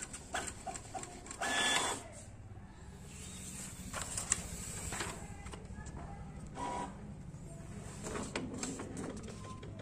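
Brother DCP-T420W inkjet printer printing its print quality check sheet, which it does automatically once initial ink charging is finished: a steady mechanical whir of the paper feed and print head with scattered clicks, and a louder noisy burst a second and a half in.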